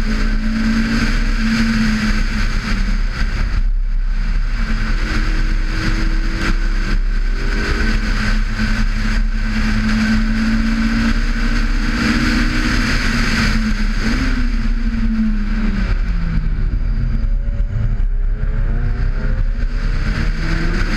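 Honda S2000 AP1's F20C 2.0-litre four-cylinder engine running hard at high revs on track, with steady wind rumble on the outside-mounted camera. The engine note dips briefly about four seconds in, drops away past the middle as the car slows, then climbs again near the end.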